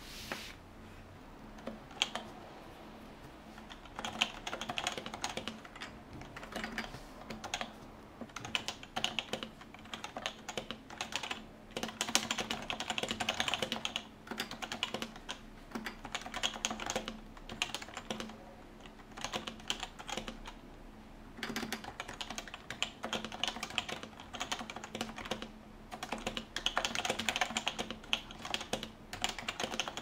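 Typing on an HHKB Professional 2 with Topre switches, the keyboard resting on a desk mat: a fast patter of keystrokes in runs of a few seconds with short pauses between.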